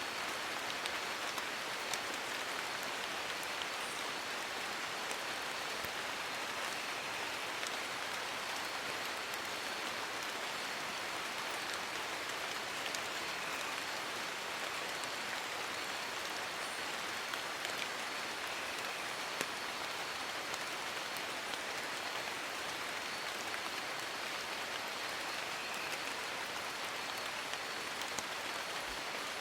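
Steady rain falling on forest leaves, an even hiss with scattered small drop ticks.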